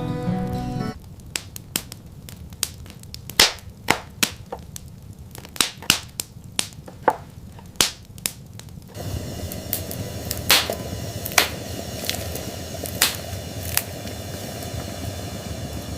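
Music that cuts off about a second in, then a run of sharp, irregular cracks and snaps at uneven intervals. From about nine seconds a steady rushing noise joins the cracks.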